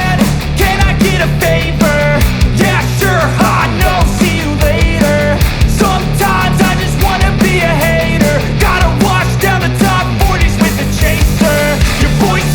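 Loud background music with a steady drum beat, bass and a lead melody.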